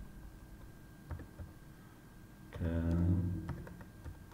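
Computer keyboard being typed on, a few faint key clicks, with a voice sounding briefly about two-thirds of the way through.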